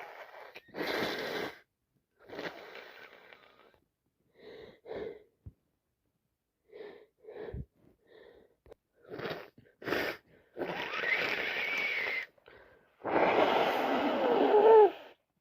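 A woman congested with a head cold and sinusitis sniffling and sneezing, then blowing her nose in two long wet blows near the end, with a wavering whistle through the blocked nose.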